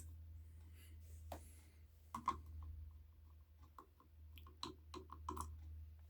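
Faint, irregular small clicks and light scrapes from handling an RC plane's plastic spinner cone and its screws as the cone is taken off, over a steady low hum.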